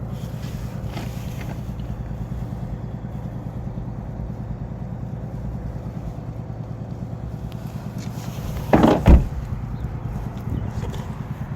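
A steady low engine rumble, with one short, loud noise about nine seconds in.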